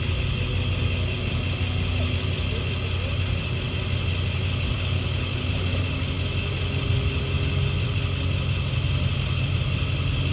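An engine idling steadily with a low, even rumble.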